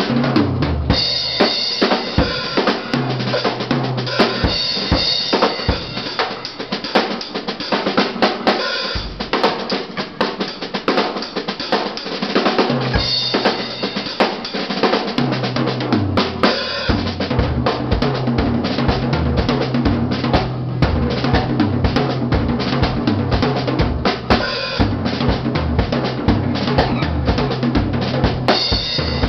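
Live rock band playing an instrumental passage: a Pearl drum kit with bass drum, snare and cymbals driving a steady beat under electric guitars and electric bass. The bass notes drop in and out through the first half and play steadily from about halfway.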